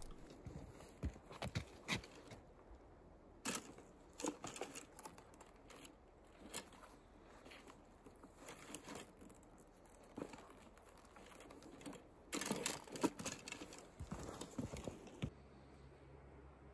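Faint scattered rustles, taps and clicks of archery gear being handled: arrows shifting in a leather hip quiver as one is drawn out and nocked on the bow. There is a louder flurry of rustling and clicking about twelve to thirteen seconds in.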